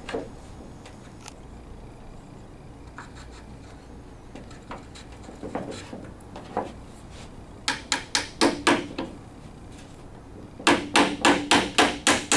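Claw hammer tapping a 3-inch wooden dowel pin through a table leg and frame corner, driving it to find the aligned holes. Light scattered knocks of the wooden leg being shifted into place come first. Then a short run of hammer taps about 8 s in, and near the end a fast steady run of taps, about four a second.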